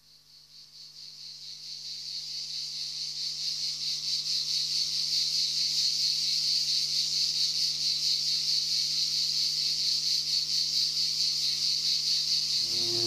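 A high, rapidly pulsing insect-like chirring fades in from near silence over the first few seconds, then holds steady. Music comes in just before the end.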